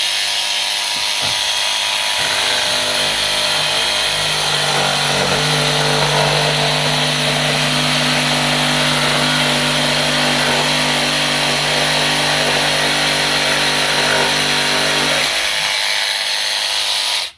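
Battery-powered DeWalt jigsaw with an extra long blade running and cutting. It runs loud and continuous, steadies into an even tone from about four seconds in, and stops abruptly at the end.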